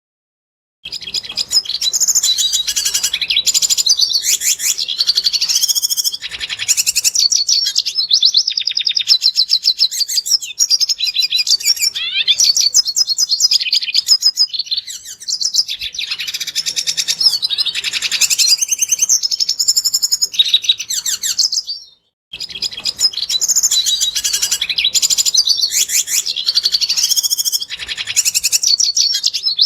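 Red siskin singing: a long, fast, high twittering song of rapid trills and chirps, beginning just under a second in, with a brief silent break about two-thirds of the way through before the song resumes.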